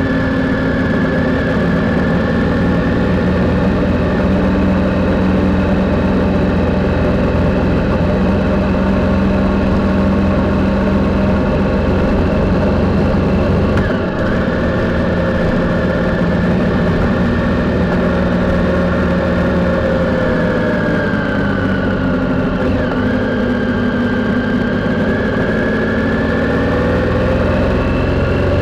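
Triumph Sprint's three-cylinder engine running on the move at steady revs, heard from the bike with wind noise underneath. The revs dip briefly about halfway through, then fall and climb again in the last third.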